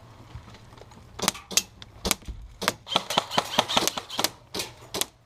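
Airsoft gun firing a string of irregular semi-automatic shots, each a sharp snap, about a dozen in all starting about a second in and coming fastest near the middle.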